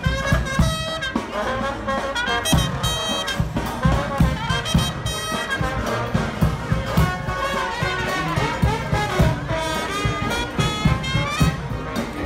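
Brass band playing jazz: trumpet and trombone lines over a steady drum beat.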